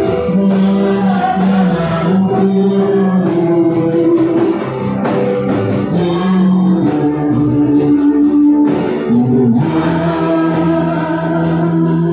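Worship song: voices singing a slow melody in held notes over a string band of small ukulele-like guitars strumming.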